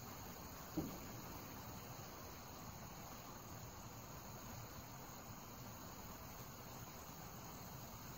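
Steady late-summer chorus of crickets and other insects. A single short, dull knock about a second in.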